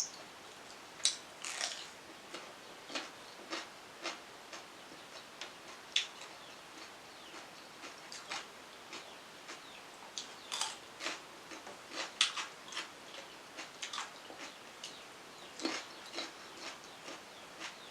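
Close-miked eating sounds: a person chewing and smacking their lips over rice and vegetables, making irregular crisp clicks and wet mouth smacks several times a second.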